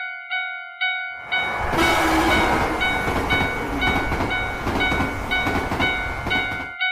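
Japanese railroad crossing warning bell ringing about twice a second, while about a second in a train passes through, the loudest sound, its noise cutting off suddenly near the end as the bell keeps ringing.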